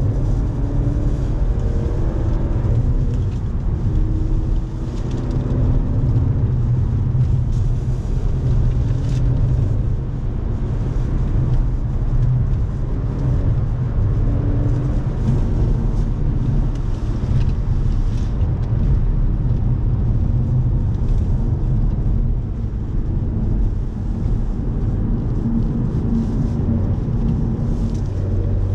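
Audi car driven at speed on a race track, heard from inside the cabin: a steady, loud low rumble of engine, tyres and wind, with a fainter engine note rising and falling now and then.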